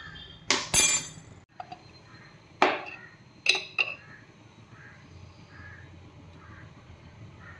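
Metal kitchen utensils clinking against pans: a handful of sharp knocks and clinks in the first four seconds, then only faint background sound.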